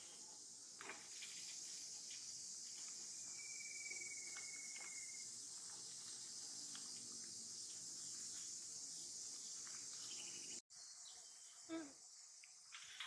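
A steady, high-pitched insect chorus of crickets or cicadas, faint and even throughout. A thin high whistle holds for about two seconds near the middle, and near the end the sound drops out for an instant before a short gliding call.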